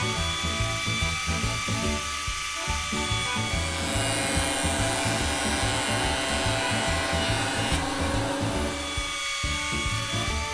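Electric wood planer running with a steady whine, louder and harsher from about four to eight seconds in as it cuts wood. It stops near the end. Background music with a steady beat plays underneath.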